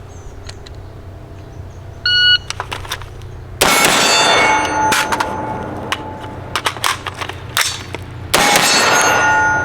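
A shot timer's start beep about two seconds in, then several shots from an HM Defense 5.56 rifle during a timed drill. The two loudest shots come about a second and a half after the beep and near the end, each followed by a lingering ring.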